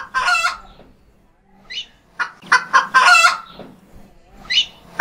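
A chicken clucking in quick runs of short calls, broken by a few higher squawks.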